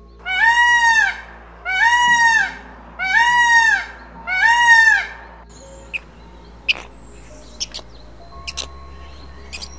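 Indian peafowl (peacock) giving four loud, evenly spaced calls, each about a second long and rising then falling in pitch. Faint scattered clicks and short chirps follow in the second half.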